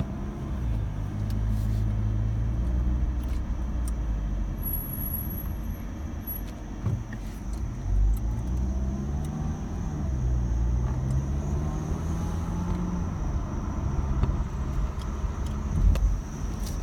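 2017 Mazda CX-5 driving at low speed, with engine and road noise and a thin high-pitched squeal from the rear brakes, stronger in the second half as the car slows. This is a rear brake squeal on a nearly new car.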